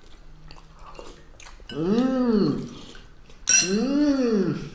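Two drawn-out, closed-mouth 'mmm' hums from a man eating, each rising and then falling in pitch, the second just after the first. Faint spoon clinks against soup bowls come before them.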